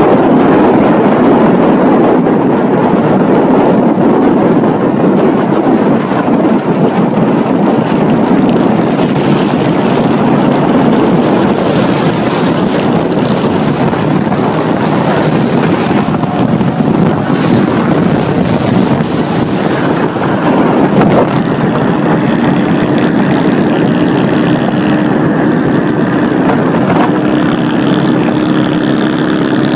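Honda Shadow V-twin motorcycle engine running while riding, with heavy wind noise on the microphone. About two-thirds of the way through, a steady engine hum settles in as the speed holds.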